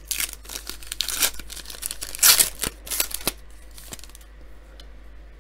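Metallic foil trading-card pack wrapper being torn open and crinkled by hand, with a run of crackly rips that is loudest a little after two seconds in and dies down to faint rustling after about three seconds.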